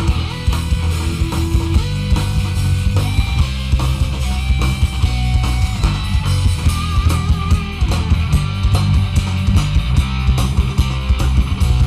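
Instrumental rock music: a lead electric guitar playing melodic lines over bass and a steady drum beat.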